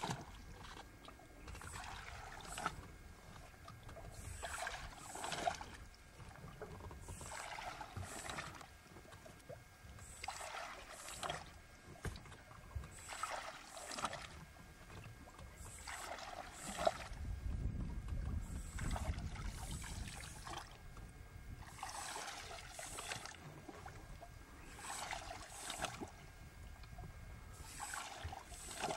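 Paddle strokes in water from a pontoon-boat paddle: the blade's splash and trickle, usually two strokes close together, repeating about every two and a half to three seconds. A low rumble runs partway through.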